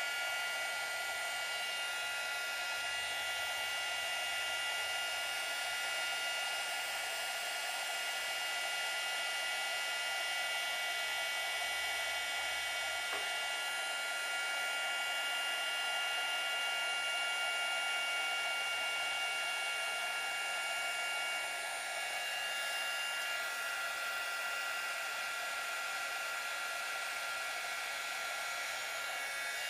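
Electric heat gun running steadily while heating a low-temperature solder joint: a constant blowing hiss with a high motor whine, one of its whining tones dropping out a little over two-thirds of the way through.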